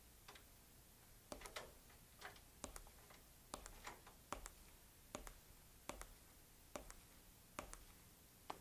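Faint, sharp clicks and taps, roughly one or two a second at an uneven pace, over near silence.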